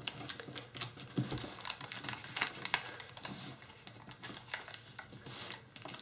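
Tissue foil (tissue paper laminated to kitchen foil) being folded and creased by hand, a run of irregular crinkles and small clicks, loudest a little before halfway through.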